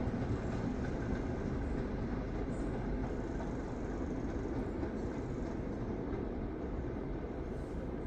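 A train running on the railway, a steady low rumble that slowly fades as it moves away.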